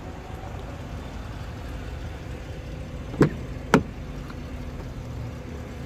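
Two sharp clicks about half a second apart, the door handle and latch of a Chevrolet Silverado pickup's driver's door as it is pulled open, over a steady low rumble.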